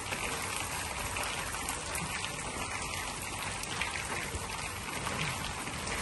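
Light rain falling on a concrete courtyard: big, scattered drops over a steady hiss.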